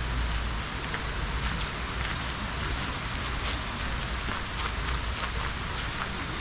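Steady rain-like pattering: an even hiss dotted with many small drop ticks, over a low continuous rumble.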